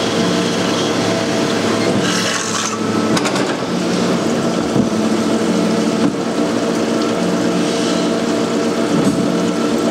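Metal-cutting saw running and cutting through a row of steel rebar under flowing coolant: a steady machine hum with several fixed tones over the noise of the cut, and a brief hiss about two seconds in.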